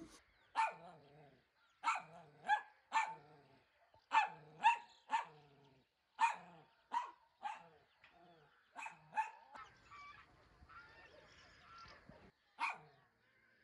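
A dog barking: about a dozen short barks at an uneven pace, with a pause of a couple of seconds near the end.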